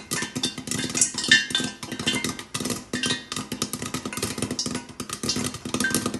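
Popcorn kernels popping fast and irregularly inside a lidded deep pan on a gas flame, several sharp pops a second, some ringing briefly off the steel lid: popping in full swing.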